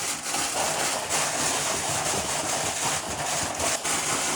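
Loud, steady rushing noise from a running machine, with no change in level.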